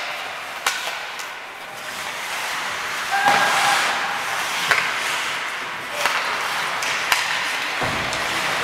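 Ice hockey play on the rink: a steady hiss of skates on the ice, broken by sharp stick-on-puck clacks about five times, with a short held call about three seconds in.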